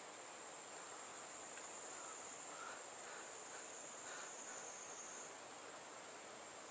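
Steady, high-pitched shrill of an insect chorus in streamside woodland, with a few faint softer calls in the middle.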